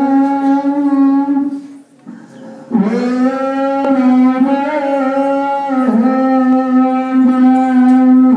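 Ethiopian Orthodox woreb chant: a male voice holds long, drawn-out notes at a steady pitch. It breaks off for about a second roughly two seconds in, then takes up the long note again.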